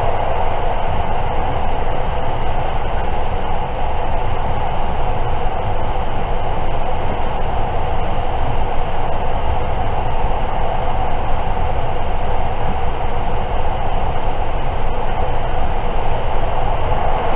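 Cabin noise of a JR 681 series electric limited-express train running steadily on the line, heard from inside a passenger car: an even rumble and rushing of wheels on rail, without a break.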